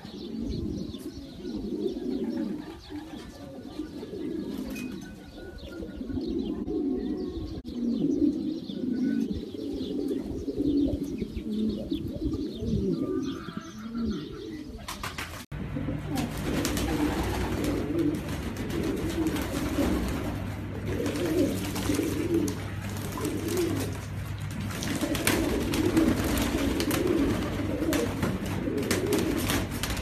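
Pigeons cooing repeatedly, a low burbling that keeps going. About halfway through, a steady hiss and low hum come in under the cooing.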